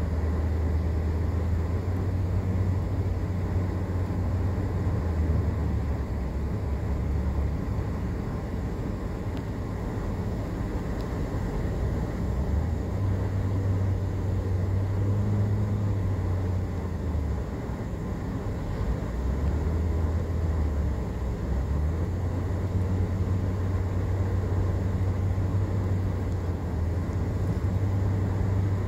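Car cabin noise while driving: a steady low rumble of engine and tyres on the road, dipping slightly now and then as the car takes the curves.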